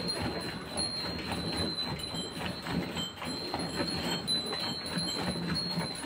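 Milk squirting in rhythmic jets into a steel bucket as a cow is milked by hand, about two to three squirts a second.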